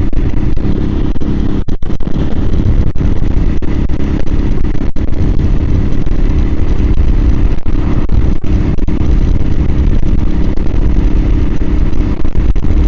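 Suzuki TU250X's single-cylinder engine running steadily on the move, heard through a microphone inside the rider's helmet. The sound briefly cuts out a few times, mostly in the first half.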